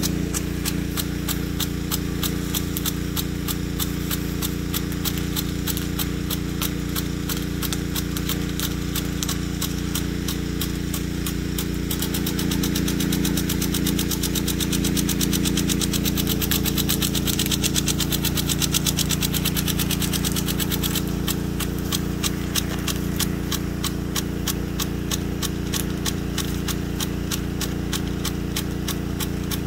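Weathertec 10-67 impact sprinkler running on a 1/4-inch drive nozzle and 7/32-inch spreader nozzle, its drive arm clicking rapidly and evenly against the water stream. Under it the pump feeding it hums steadily. The clicking grows louder for several seconds in the middle.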